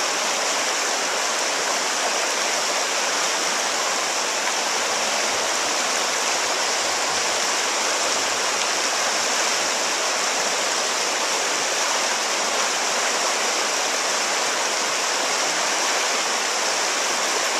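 River rapids rushing steadily, a constant hiss and rush of white water.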